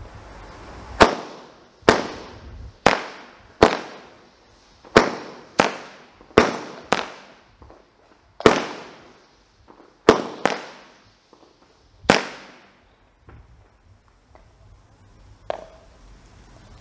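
Boomer 'Parachute Battalion' firework cake firing its daytime parachute shots: a dozen or so sharp reports, irregularly spaced a second or so apart, each with a short echoing tail. A last, fainter report comes near the end.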